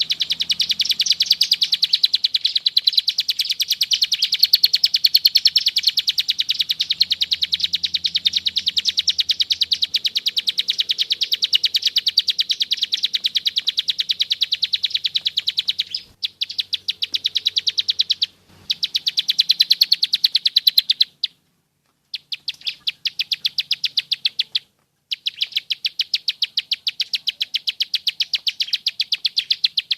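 Ciblek sawah (prenjak sawah) giving its long, dense rattling trill, a fast, even run of sharp clicking notes, broken by a few short pauses and one brief silence about two-thirds through.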